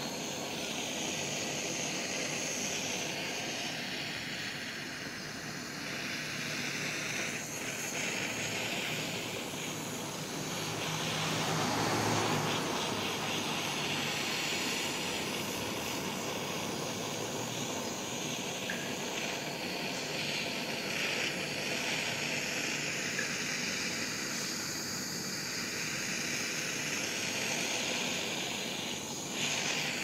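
Handheld gas torch burning with a steady hiss, its flame heating the bushing on a washing-machine transmission shaft so the metal expands and the bushing loosens.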